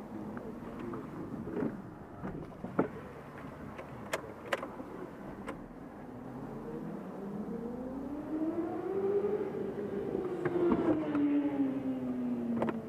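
Volvo S40's engine heard from inside the cabin as the car pulls away: after a few sharp clicks, the engine note climbs steadily over about three seconds, then eases slowly down as the car drives on.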